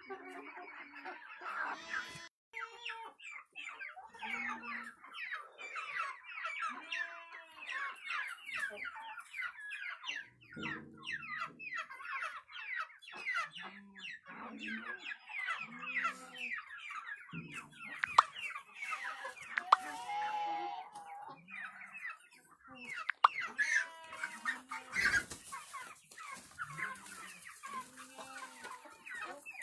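A flock of Light Brahma chickens, adults and many young birds, calling continuously: a dense run of overlapping high, falling peeps mixed with lower clucks.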